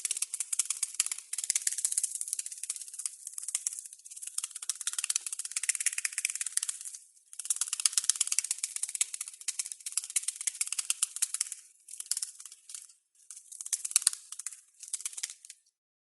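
A butterfly's wings fluttering against a window pane: rapid, mostly high-pitched ticking in spells of a few seconds broken by short pauses.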